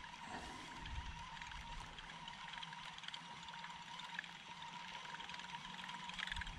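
Advantage Baits buzzbait being reeled across the pond surface, its propeller blade churning the water in a faint, steady sputter with small clicks.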